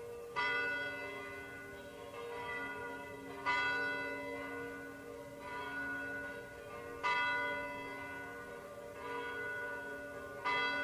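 Church bells ringing: a heavy stroke about every three and a half seconds with softer strokes between, each left to ring on, over a steady low held tone.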